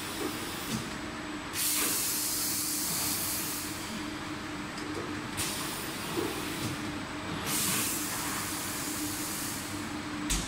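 Automatic shrink-wrap packaging line (film sleeve sealer feeding a heat-shrink tunnel) running with a steady hum and a constant tone. Three bursts of hissing, each about two seconds long, break through it, and a sharp click comes near the end.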